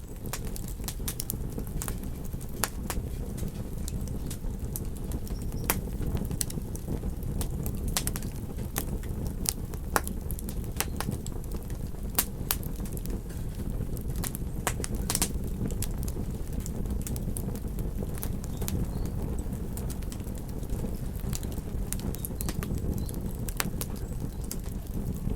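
Campfire crackling, with sharp irregular pops and snaps scattered throughout, over a steady low rumble.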